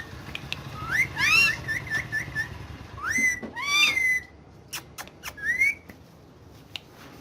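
Parrot whistling: a rising whistle that breaks into a quick run of short chirps, then further rising whistled calls about three and five and a half seconds in, with a few sharp clicks between.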